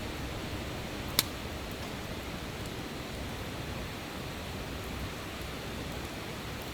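Wood campfire with one sharp pop a little over a second in, over a steady even hiss.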